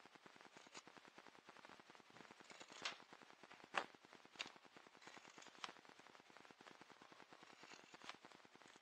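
Carving knife slicing shavings off a small wooden paddle blank: a few short, sharp snicks of the blade through the wood, about six in all, the loudest a little under four seconds in, over faint background hiss.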